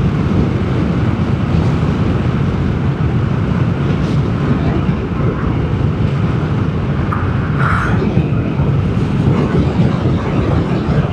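Steady wind rumble and road noise while riding a Vespa GTS 300 scooter, heavy in the low end.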